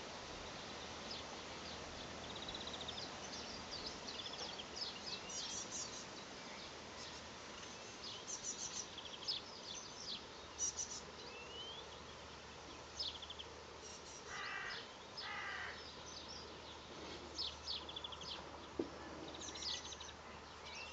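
Tits and house sparrows chirping and calling, with many short high chirps and quick trills. A harsher, lower chattering call comes twice a little past the middle.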